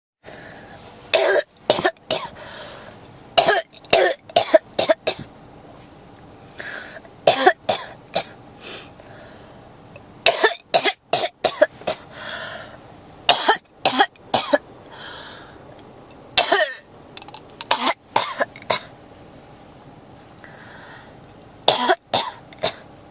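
A person coughing in fits that won't stop: short clusters of two to five coughs come every few seconds, with quieter breaths between the fits.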